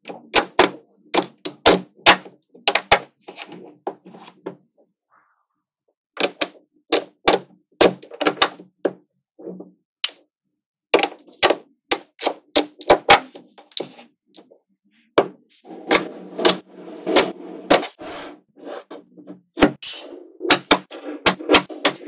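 Small neodymium magnetic balls clicking and snapping together in quick clusters as sheets of them are bent, pressed and attached to a magnet-ball wall. There are brief quiet pauses between the bursts, and a softer rattle of balls shifting against each other.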